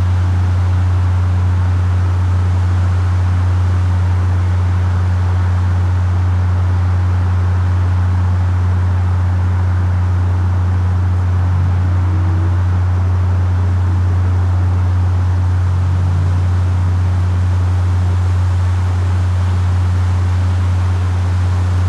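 A steady, unchanging low-frequency hum, with a fainter tone at about twice its pitch, over a constant hiss. It is an unexplained environmental hum, which the recorder likens to the Windsor hum.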